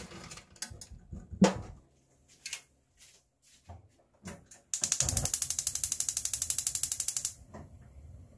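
A pot clanks loudly once about a second and a half in, then a gas stove's igniter clicks rapidly and evenly for about two and a half seconds as the burner is lit under the pot of sea snails.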